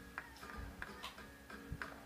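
Flamenco dancers' sharp percussive clicks, about three a second in an uneven rhythm, over faint accompanying music with sustained tones.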